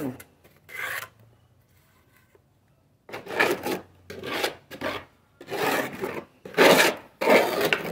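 A hand plastering tool scraping thin mortar across a rough cement wall as it is spread on: one short scrape about a second in, then after a pause a run of five scrapes in quick succession.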